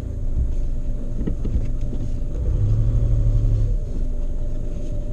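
Car engine running at low speed with a low rumble while the car is manoeuvred back and forth in a many-point turn; a low drone swells for about a second midway.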